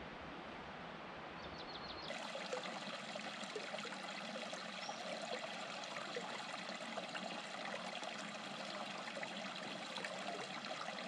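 Mountain creek running over rocks, a steady babble of small splashes and trickles. For about the first two seconds there is only a steady hiss with low rumble, then the creek sound starts abruptly.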